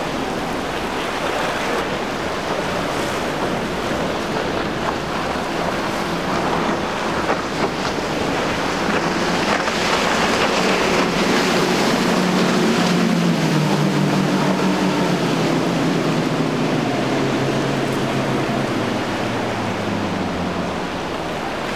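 Rushing water from waves and boat wake, with wind on the microphone, and a speeding boat's triple outboard motors droning through it. In the second half the engine tone grows stronger and slides slowly lower in pitch before fading near the end.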